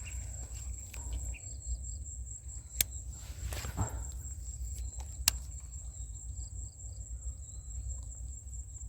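Steady high-pitched chirring of insects, with a low rumble underneath and two sharp clicks about two and a half seconds apart.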